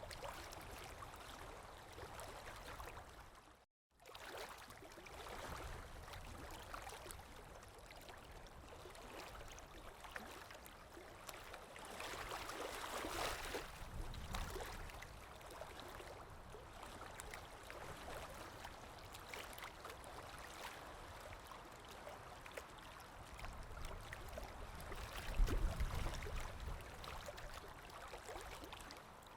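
Sea waves washing in: steady surf with a swell about halfway through and a heavier, deeper wave breaking near the end. The sound cuts out completely for a moment about four seconds in.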